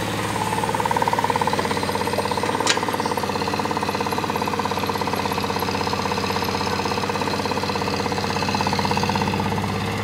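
Caterpillar E140 hydraulic excavator's diesel engine running steadily while it works, swelling slightly about a second in and again near the end. A single sharp clank sounds about two and a half seconds in.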